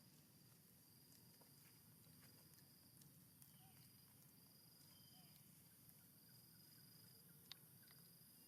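Near silence with faint insect trilling outdoors: a thin high buzz that comes and goes in stretches of about a second, with a few soft clicks and one sharper click about seven and a half seconds in.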